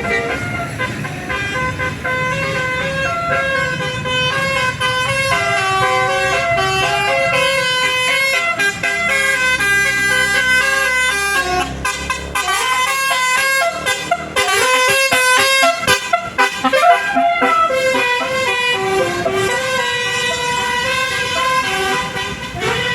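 Bus 'telolet basuri' melody horn playing a long tune of stepping notes, with a bus engine running beneath in the first half.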